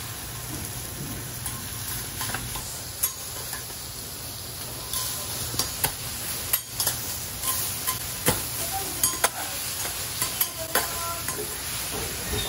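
Pork belly strips, noodles and shredded cabbage sizzling on a hot steel teppan griddle. Metal spatulas click and scrape against the plate a dozen or so times as the cook cuts and turns the food. The sizzle grows louder about five seconds in.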